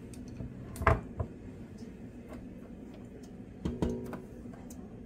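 Two light knocks of kitchenware being handled, one about a second in and one just before the four-second mark, the second with a brief ring, over a faint steady hum.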